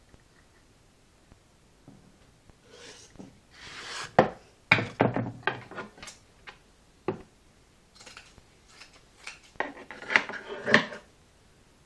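Hard objects being handled: a rubbing scrape, then scattered clicks and knocks in two clusters, like parts being picked up, set down and worked on a hard surface.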